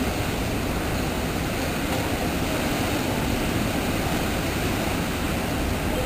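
Rough ocean surf breaking and washing over rocks: a steady rush of water with a strong low rumble.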